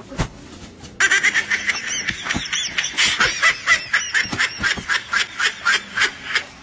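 Hearty, high-pitched laughter in rapid bursts of several a second, breaking out about a second in, after a brief knock.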